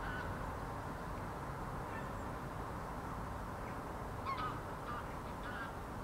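Three short calls from waterbirds in the second half, over a steady low rumble of background noise.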